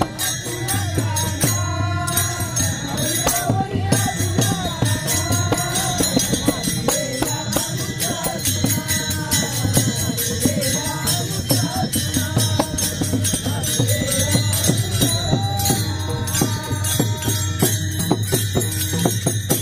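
Men singing a Marathi devotional gavlan together, accompanied by the steady rhythmic clashing of many brass taal hand cymbals.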